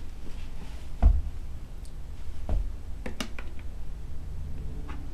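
A few scattered light clicks and knocks as a toddler handles coins and a plastic coin bank, with a heavier thump about a second in.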